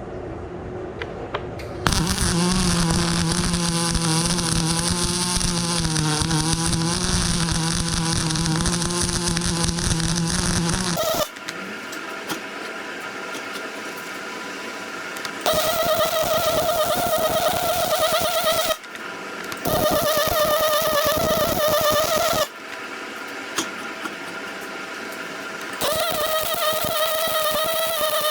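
Arc welding in several runs of a few seconds to about nine seconds: a steady crackling arc with a wavering hum from the welding machine, stopping and restarting between passes.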